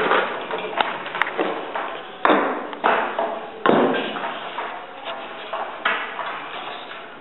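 Several sharp knocks and taps, some with a short ring, spaced irregularly through a few seconds.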